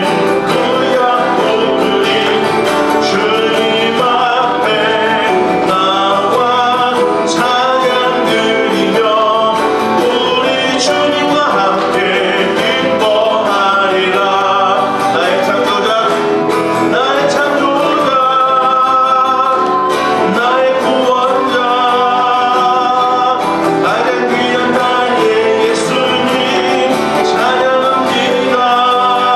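A man singing a Korean praise song into a microphone while playing an acoustic guitar.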